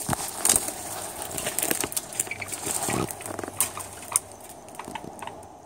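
Footsteps crunching through dry leaf litter and twigs on a forest floor, with irregular snaps and crackles as the walker moves along.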